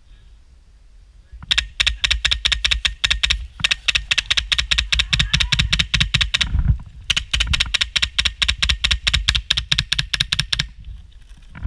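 Airsoft gun firing on full auto in three long bursts: a fast string of sharp clicks at roughly ten shots a second, loud and close.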